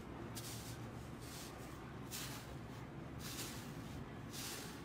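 Fingers pressing into the dry crust of a purple slime, making a series of soft, hissy crackles at irregular intervals, the loudest near the end, over a low steady hum.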